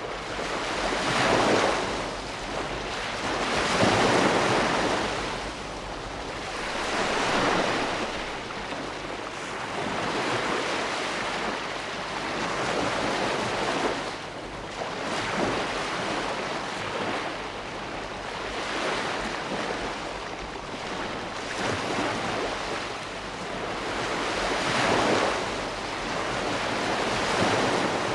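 Ocean waves breaking and washing on the shore, a steady rush of surf that swells and ebbs every few seconds.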